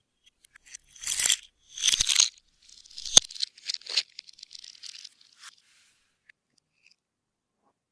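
Clear slime worked by hand: two sticky tearing pulls, then a sharp pop and a run of small crackles and clicks that die away a little past the middle.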